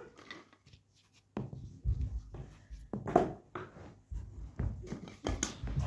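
Small plastic balls being rummaged and tossed in a plastic basin: a string of irregular knocks and dull thumps, the loudest about three seconds in.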